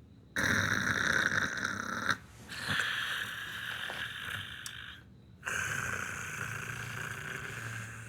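A person snoring: three long snores, each starting abruptly, with short breaks between them.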